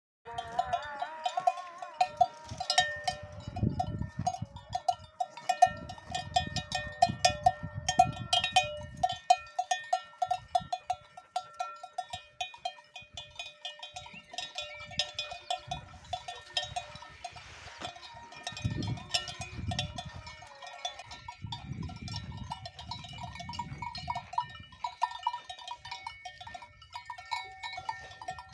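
Cowbells (kelek bells) worn by grazing Simmental cows, clanking in quick, uneven strokes around one ringing pitch. The clanking is busiest in the first part, eases off in the middle and picks up again near the end. Low rustling can be heard between the strokes.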